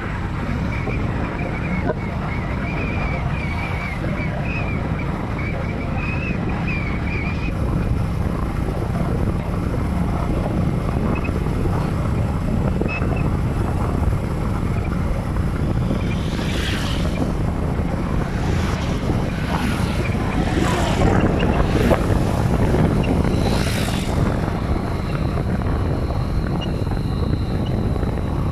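Wind and road noise from a vehicle driving along a highway: a steady low rumble with wind buffeting the microphone, and a few brief louder swishes in the second half.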